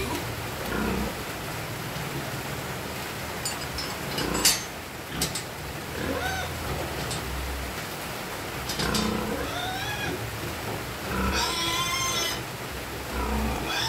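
Piglets squealing in short, bending high calls every few seconds, some with low grunts under them. A sharp knock about four and a half seconds in is the loudest sound.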